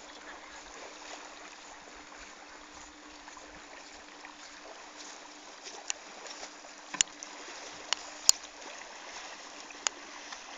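Soft, steady wash of calm lake water, with a handful of sharp clicks or knocks in the second half.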